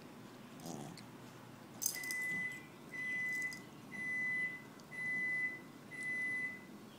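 An electronic beeper sounding a steady high tone five times, about once a second, each beep held most of a second, starting about two seconds in. Just before the beeps, a brief crunch as the dog chews ice.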